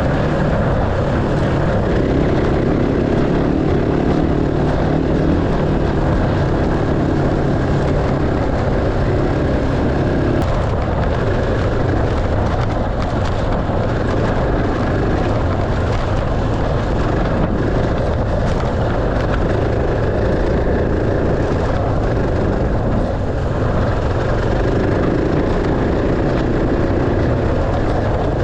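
Enduro dirt bike engine running during a ride. Its note shifts in pitch and strength several times, dropping about ten seconds in and coming back up near the end.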